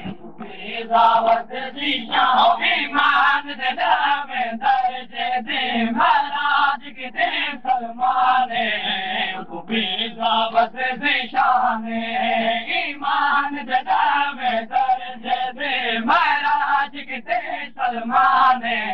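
A chorus of men's voices chanting a noha, a Shia mourning lament, in a steady sung rhythm, with hand strikes on chests (matam) keeping time.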